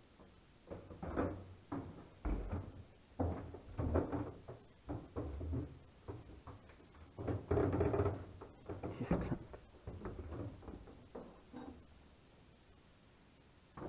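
Irregular knocks, thumps and handling noises from people moving about in a dark room, about a dozen separate bursts, ending in a quieter stretch over the last couple of seconds.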